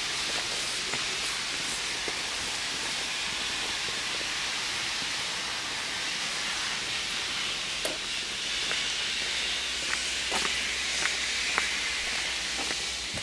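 Steady high hiss with no pitch to it, joined in the second half by a few light ticks.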